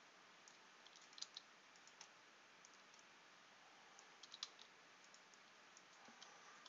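Faint clicks of computer keyboard keys being pressed over a low steady hiss: a few scattered taps, bunched about a second in and again about four seconds in.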